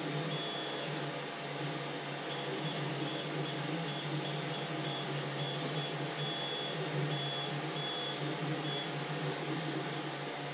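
Creality CR-10 3D printer running as a print gets under way: a steady hum of its cooling fans, with the stepper motors whining in short high tones that come and go as the print head moves.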